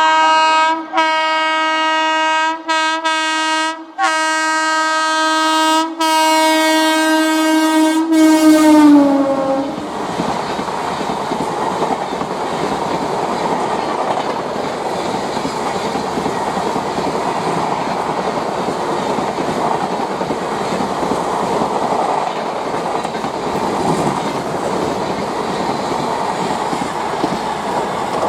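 WAP-7 electric locomotive's horn sounding in long blasts with a few brief breaks, its pitch dropping as the locomotive passes about nine seconds in. Then the steady rushing noise of the LHB coaches running past at speed.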